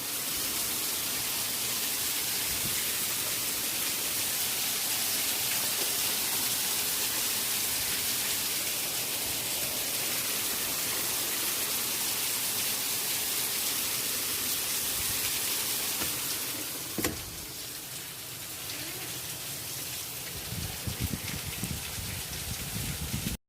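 Steady heavy rain hissing during a severe thunderstorm. About 17 seconds in there is a sharp click and the rain gets a little quieter, and a few low thumps follow near the end.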